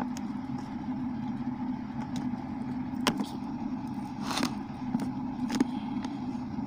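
Steady low hum with a few short clicks and knocks over it, the sharpest about three seconds in.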